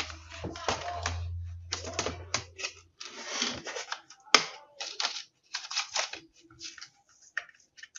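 Irregular plastic clicks and scrapes as the snap-in keyboard top case of an ASUS X553M laptop is pried up, its retaining clips snapping loose, with one sharp snap about four seconds in.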